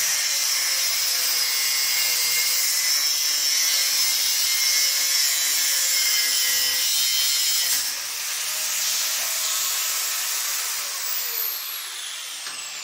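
Angle grinder cutting steel: a steady high whine over a harsh grinding hiss. It eases off about eight seconds in and keeps running more lightly, and near the end the whine falls in pitch as the disc spins down.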